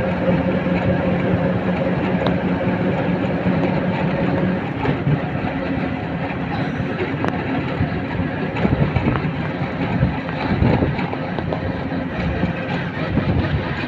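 Engine and road noise heard from a moving vehicle, with a steady engine hum that changes about four and a half seconds in.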